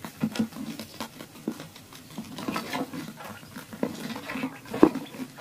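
Quail pecking at scattered grain on dirt and a board: a patter of quick, irregular taps, with one sharper tap near the end.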